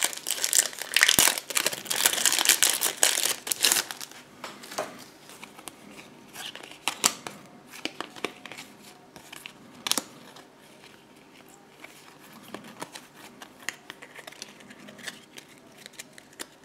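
Foil-lined trading-card booster wrapper being torn open and crinkled, loud for the first four seconds. After that come quieter scattered clicks and rustles of the cards being handled and fanned out, with one sharper click about ten seconds in.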